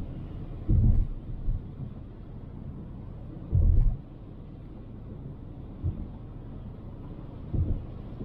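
Steady low road and engine rumble of a Toyota RAV4 driving through snow, with three short low thumps: about a second in, near the middle and near the end.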